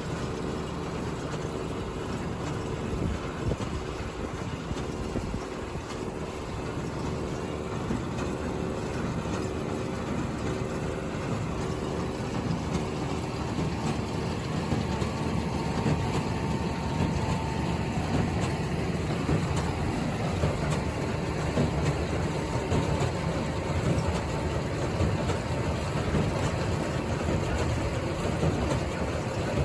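Tractor engine running steadily, becoming a little louder and rougher about halfway through.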